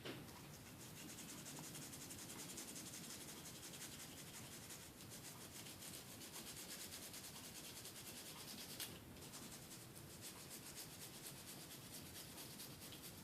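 Small brush scrubbing an iPod Classic's LCD screen connector: a faint, steady run of quick scratchy brushing strokes.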